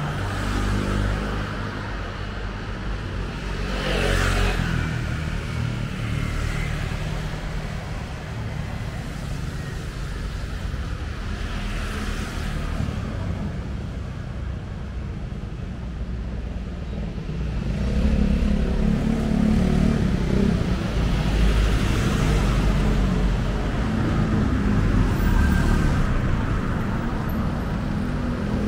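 Street traffic with motor vehicles passing; one goes by close about four seconds in. A vehicle's engine rumble grows louder from about two-thirds of the way through.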